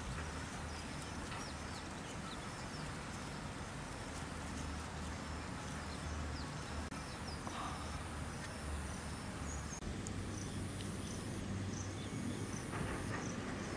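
Rural outdoor ambience: scattered bird chirps over a low steady rumble. From about ten seconds in, a high insect trill comes in stretches of about a second.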